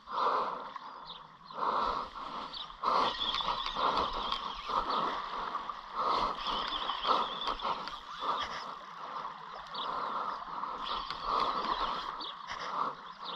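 Spinning reel being cranked against a hooked fish on a surfcasting rod under load, a run of uneven scraping turns about twice a second.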